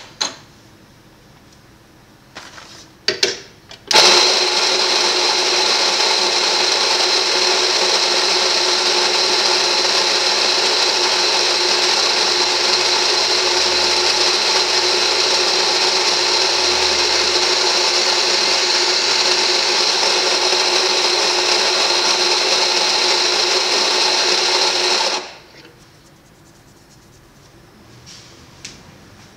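Electric coffee grinder motor running steadily for about twenty seconds while grinding beans for espresso, then cutting off. It is preceded by a few sharp knocks about a second and three seconds in.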